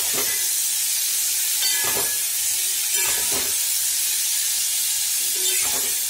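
Cauliflower florets frying in groundnut oil in a kadai: a steady sizzling hiss, with a spatula scraping through them about five times as they are stirred to coat them in chilli powder and salt.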